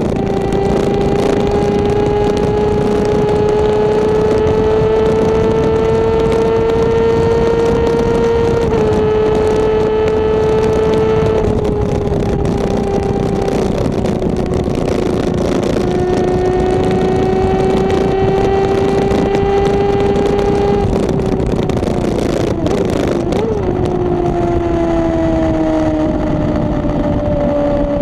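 Honda CBR600RR inline-four with a Two Brothers aftermarket exhaust, running at speed with a strong, steady engine note. The pitch climbs slowly as the bike pulls, dips a couple of times, and falls steadily over the last few seconds as the throttle comes off. Heavy wind noise on the microphone sits under it throughout.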